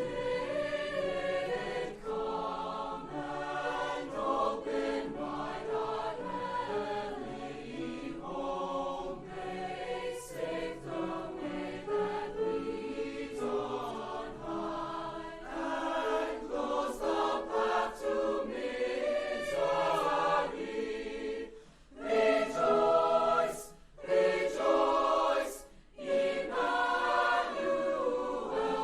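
A choir singing a Christmas song in harmony, several voice parts together, with crisp 's' sounds at word ends. It breaks off briefly twice in the last third and comes back louder each time.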